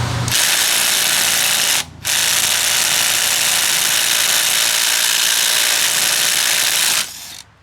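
Ridgid cordless impact wrench hammering on a car lug nut set to 120 foot-pounds, in speed 2. A short burst, a brief pause, then about five seconds of continuous hammering that stops suddenly.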